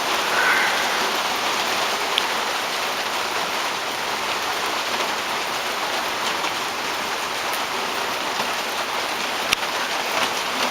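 Steady heavy rain falling and pattering on hard surfaces, with a few sharper individual drop ticks, one louder than the rest near the end.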